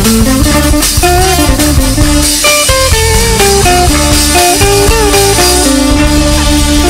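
Cambodian dance band music: a guitar plays a melody of held notes that step up and down over a loud bass line and beat.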